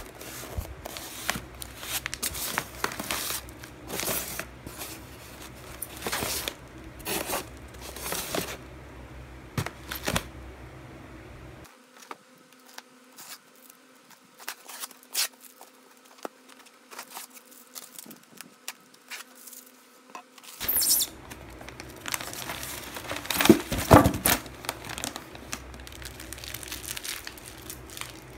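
Plastic food pouches crinkling and rustling in bursts as they are handled in a styrofoam box, with a quieter lull in the middle.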